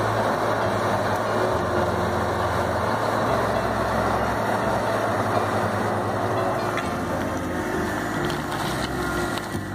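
Kubota U30 mini excavator's diesel engine running steadily while the machine works its arm and bucket.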